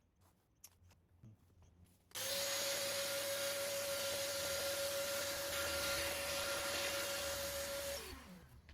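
Vacuum cleaner switched on abruptly about two seconds in, after a few faint clicks. It runs for about six seconds with a steady whine over rushing air. Near the end it is switched off and the motor winds down with a falling pitch.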